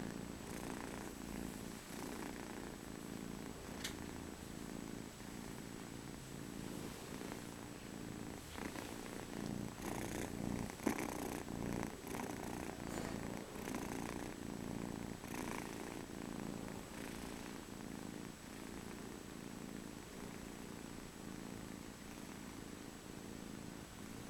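Ragdoll kitten purring steadily, close up, with a few soft rustles near the middle.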